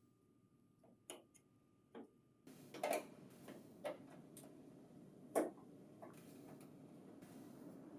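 Scattered light clicks and knocks, about five in all, irregularly spaced, as a flathead screwdriver and bracket are worked onto the printer finisher's housing.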